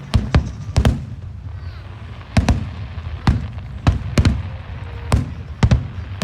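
Aerial fireworks shells bursting overhead: about a dozen sharp bangs at uneven intervals, some in quick pairs, over a steady low rumble.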